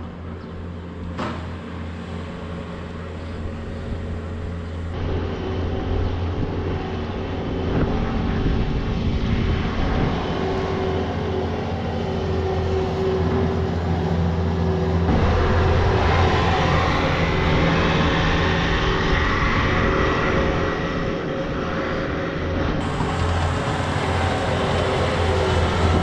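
Bobcat S66 skid steer's engine running steadily, getting louder from about halfway through as the machine drives up close.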